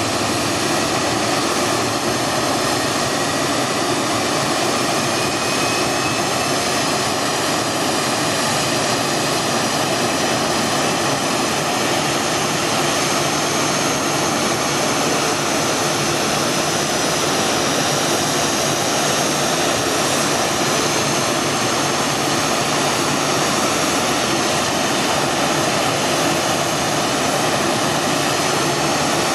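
CFM56-7B turbofan engines of a Boeing 737-800 running steadily after engine start: a loud, even rushing hiss with a thin high whine on top.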